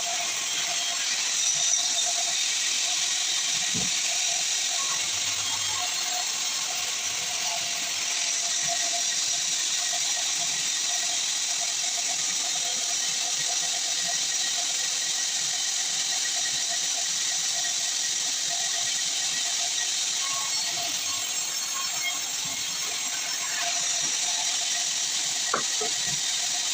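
Sawmill saw running through a log, a steady high hiss with a thin whine underneath and a couple of faint knocks.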